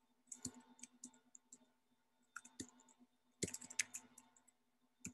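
Faint keystrokes on a computer keyboard: three short runs of typing clicks with pauses between, and another run near the end.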